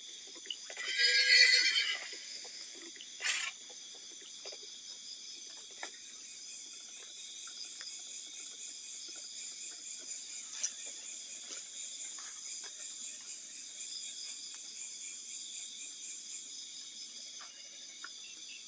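A short, high, wavering cry like a horse's whinny about a second in, then a single sharp click. After that come steady high hiss and faint scattered ticks from a CCTV camera's microphone.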